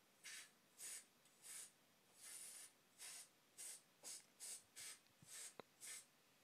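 Faint short hissing bursts of a compressed-air duster being sprayed in quick puffs to clean a cassette deck's tape transport. There are about eleven puffs at roughly two a second, and one longer burst a little over two seconds in.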